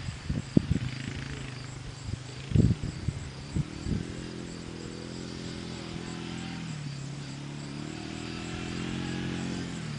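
Suzuki Eiger 400 ATV's single-cylinder engine running as the quad rides across the field and comes closer, its pitch dipping about seven seconds in and rising again before dipping near the end. A few sharp thumps come in the first four seconds.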